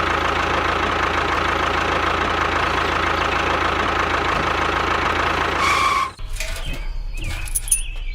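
Small engine running steadily, cutting off abruptly about six seconds in to quieter, scattered clicks over a low hum.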